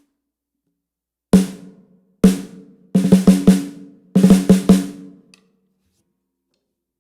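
Snare drum with a loose spare drumhead laid on top of its batter head, played in a groove for a deeper, fuller snare sound: two single strokes about a second apart, then two quick runs of about four strokes, each ringing briefly.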